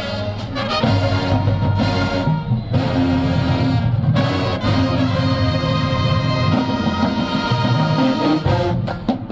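Marching band brass playing loud held chords, with short breaks between phrases.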